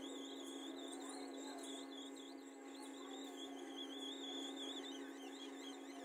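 Hot air rework station blowing on a phone board to lift a chip: a faint steady hum with a high whistle that wavers in pitch.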